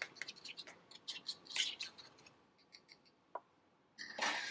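Metal fork clicking and scraping against a ceramic bowl while stirring a thick seasoning paste, in quick light taps. The stirring stops about halfway, and a short scraping rustle follows near the end.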